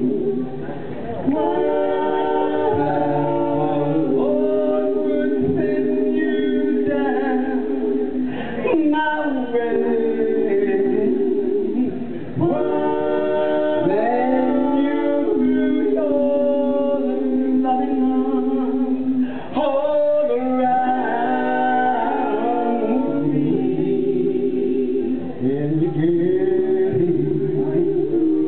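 Mixed male and female a cappella doo-wop group singing close harmony without instruments: held backing chords under a lead voice, in phrases with brief breaks between them.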